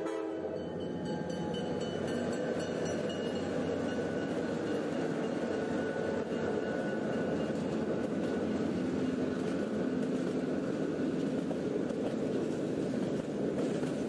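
A train horn blast cuts off just after the start, giving way to the steady rumble and rattle of a train running on the rails.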